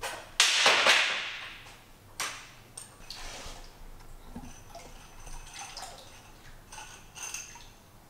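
Old fork oil draining from a Harley-Davidson Sportster front fork tube into a bucket: a loud gush about half a second in that fades over a second, then splashing and dripping as the tube is pumped, with light metallic clinks and pings from the fork tube and its spring.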